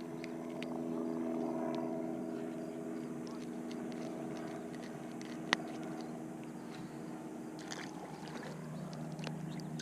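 A motor drones steadily in the distance, easing off after the first few seconds, with one sharp click about halfway through.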